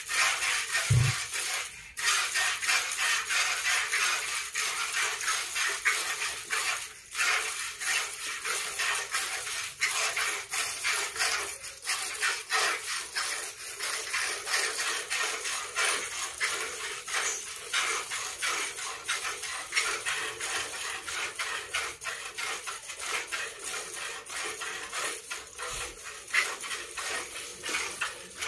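A cow being milked by hand: milk squirts from the teats hiss into a plastic bucket in a steady rhythm, about two squirts a second.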